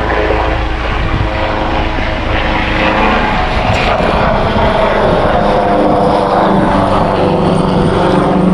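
A motor vehicle's engine running with a steady drone, mixed with road and wind noise.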